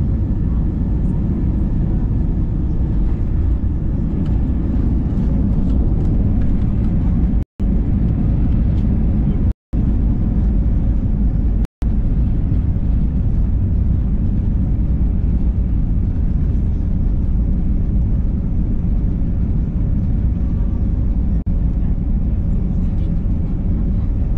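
Steady low rumble of jet airliner cabin noise, engines and airflow heard from a window seat. The sound cuts out completely for an instant three times in the first half.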